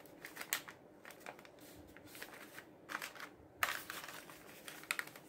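Printed paper wrapper rustling and crinkling as it is folded and rolled around a Ring Pop by hand, in irregular soft handling noises with a few sharper crackles, the loudest a little past halfway.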